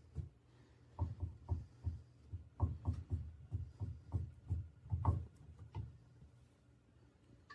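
A series of about fifteen short, dull knocks and thumps at uneven spacing, starting about a second in and stopping about six seconds in.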